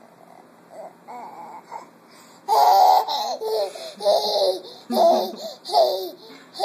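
A 10-month-old baby making noises: a few soft babbles, then about two and a half seconds in a run of loud, breathy laughing squeals, roughly one a second.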